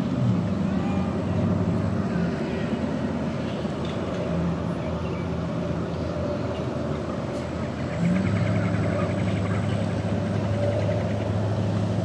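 An engine running steadily with a low hum. A deeper, louder hum comes in about 8 seconds in.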